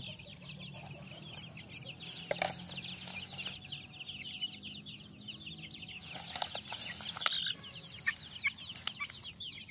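A group of young chickens, about five weeks old, peeping in a continual chorus of short high chirps. A few louder, noisy flurries come about two seconds and six to seven seconds in.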